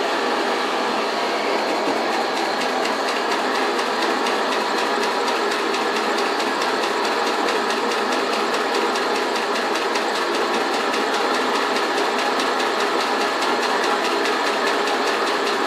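Small homemade steam engine, cast from melted aluminium cans, running on steam with a fast, steady clatter over a continuous hiss.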